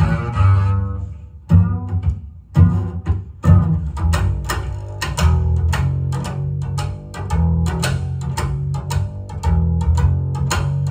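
Jazz double bass played pizzicato, a rhythmic run of deep plucked notes with a brief pause about a second in, played back over large hi-fi loudspeakers.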